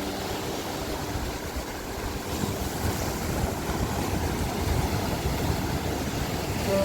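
Ocean waves washing ashore: a steady rushing noise with a deep, uneven rumble underneath.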